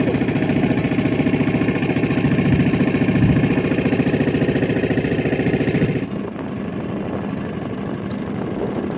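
Engine of a small motorised fishing boat running steadily under way with a fast, even beat. About six seconds in the sound drops abruptly to a quieter, duller tone and carries on.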